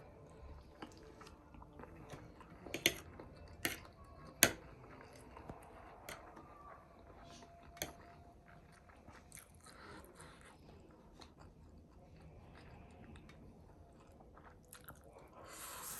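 A person chewing and crunching food, with a few sharp crunches or clicks, the loudest about four and a half seconds in.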